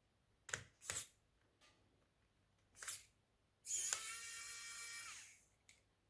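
A few light clicks, then a small electric screwdriver whirring steadily for about a second and a half as it backs out the single screw at the laptop's M.2 SSD slot.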